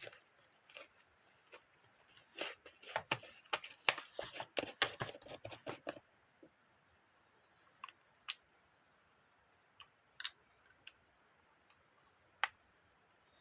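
Food-preparation handling sounds: a quick run of crisp crunches and clicks for about four seconds, then a few scattered light taps.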